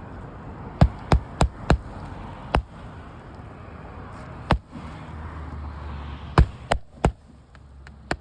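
Hammer driving a roofing nail through a three-tab asphalt shingle: about ten sharp blows, a quick run of four, then spaced single strikes and another quick run of three.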